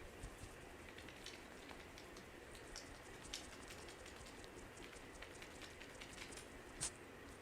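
Faint, irregular crackling and light clicking of hands working through the hair and over the scalp in a head massage, with one sharper click near the end.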